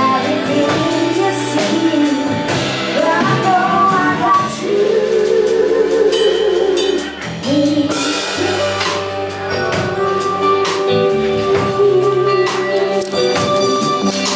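A band playing a song: singers over a drum kit, with one long sung note held with vibrato in the middle.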